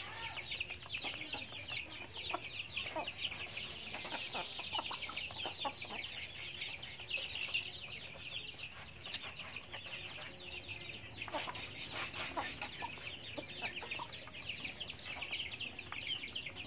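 Backyard chickens calling as they forage: a dense, unbroken run of short high chirps and peeps, with a few lower clucks about two-thirds of the way through.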